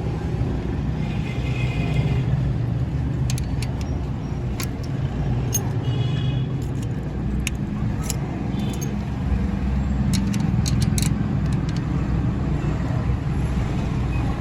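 Steady low rumble of motor traffic, with scattered light metallic clicks of hand tools as a Honda CG125's valve tappets are adjusted, most of them in the middle of the stretch.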